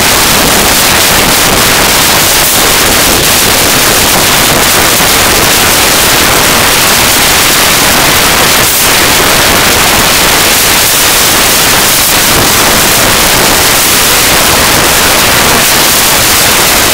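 Loud, steady static-like hiss with no pauses or distinct sounds in it: overloaded noise on the recording's microphone, typical of rushing air on a camera during a fast trail ride.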